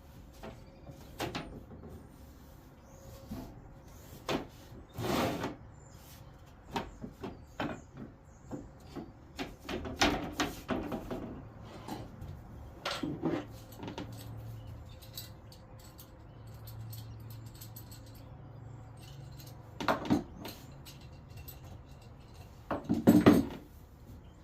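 Irregular knocks and clatters of wooden boards and clamps being handled in a woodworking shop, with a louder run of knocks near the end.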